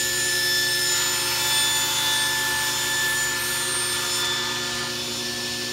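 Table saw running and ripping a wooden panel: a steady motor whine under the hiss of the blade cutting. The cutting noise eases off somewhat toward the end.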